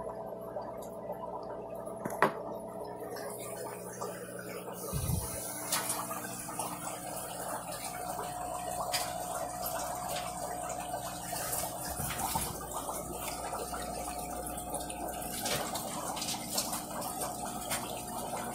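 Aquarium water bubbling and trickling over a steady hum, with a sharp click about two seconds in.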